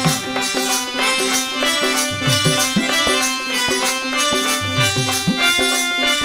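Instrumental interlude of Hindi devotional bhajan music: a harmonium sustaining chords and melody over a steady percussion beat, with a few deeper drum strokes.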